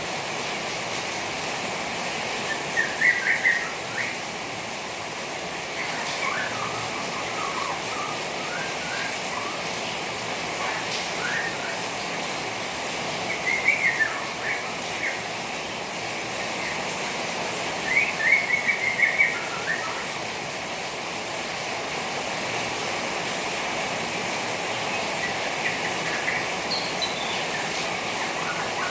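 Juvenile white-rumped shama twittering in short bursts every few seconds, over a steady splashing hiss of rain water.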